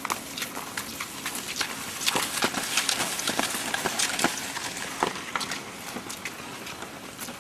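Cross-country skiers striding and poling in classic technique on packed snow: pole tips and skis give irregular sharp clicks and crunches over a steady hiss of skis gliding, busiest a couple of seconds in.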